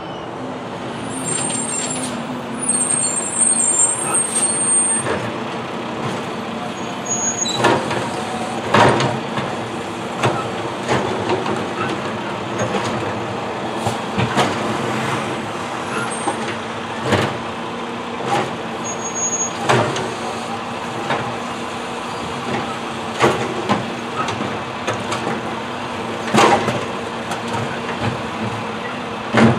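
Heavy automated side-loader garbage truck running and idling at the curb, its steady engine tone under repeated short, sharp bursts of noise every second or two, which fit air-brake hisses. Birds chirp briefly at the start.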